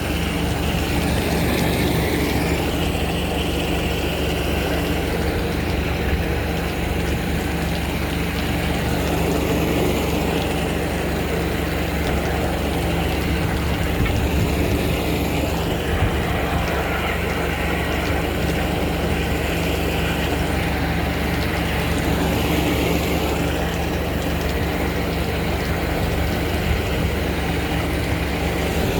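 Engine of a high-pressure drain-jetting unit running steadily at a constant speed.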